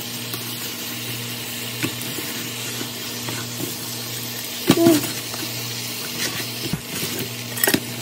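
Fried quail sizzling in a frying pan of thick fish-sauce glaze while chopsticks stir them, with scattered light clicks against the pan. About five seconds in there is a louder knock with a short ring as more quail are pushed in from a plate.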